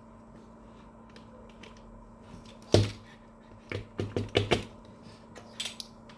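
Plastic housing of a laser printer's fuser unit knocking and clicking as it is handled and taken apart: one sharp knock, then a quick run of about five knocks, and a few faint clicks near the end.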